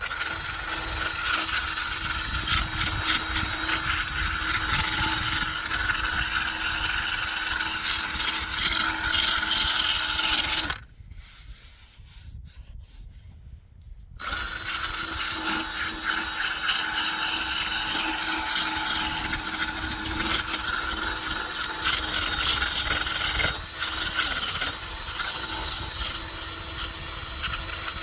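Electric power sander running against a cured epoxy and chopped-strand-mat fiberglass repair, scuff-sanding off the gloss so a Bondo skim coat will stick. It runs steadily, cuts out for about three seconds partway through, then runs again.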